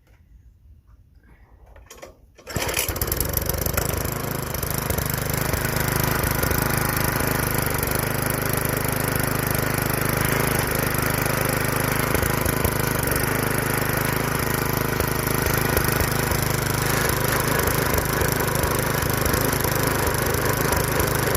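Small Briggs & Stratton engine on a Bolens front-tine rototiller starting up suddenly about two and a half seconds in, then running steadily, now that a clog has been cleared with the 'quick and dirty' primer or starter-fluid treatment.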